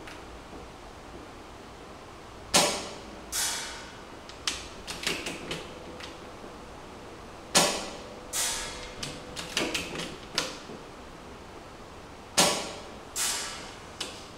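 ARES Amoeba Striker AST-01 spring-powered airsoft bolt-action rifle fired three times, each sharp shot followed under a second later by a softer knock. Between shots the bolt is cycled with a quick run of metallic clicks.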